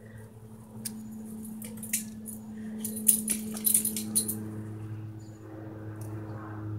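Twigs and leaves rustling and crackling as a young cat clambers through a tree's branches, loudest in a flurry of sharp clicks about three to four seconds in, over a steady low hum.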